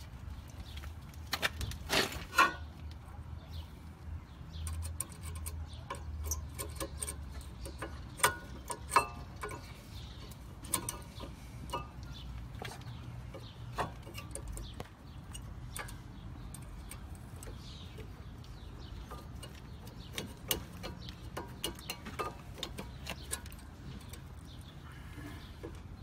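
Irregular sharp clicks and knocks of brake pads and their clips being worked by hand into a car's caliper bracket against the rotor. The loudest knocks come about two seconds in and again around eight to nine seconds.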